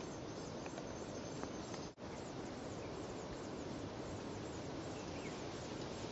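Steady outdoor background noise with a few faint, brief high chirps. The sound drops out for a moment about two seconds in.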